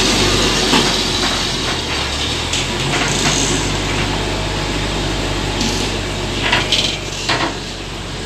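Isuzu Giga tronton truck running with a steady low hum, over which come irregular sharp metallic clacks and knocks from the wheel: the strange sound that marks a broken wheel bolt.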